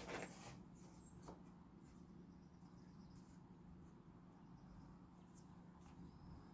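Near silence in a workshop: a faint steady low hum, with a brief light handling noise at the start and a soft click a little over a second in.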